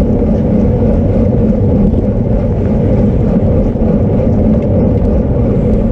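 Loud, steady wind rush buffeting the microphone of a camera on a racing bicycle moving at speed.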